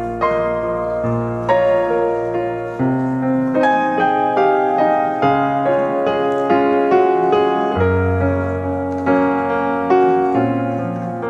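Slow, gentle piano music: single notes struck about every half second over long-held bass notes.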